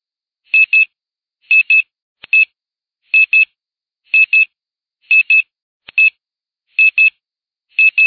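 Countdown timer sound effect: short, high electronic beeps, mostly in quick pairs, repeating about once a second.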